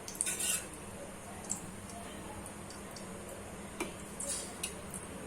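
A few light clicks and taps of a spoon against a container, with a short scraping rustle near the start, as ghee is scooped out for the pan. A low steady hum runs underneath.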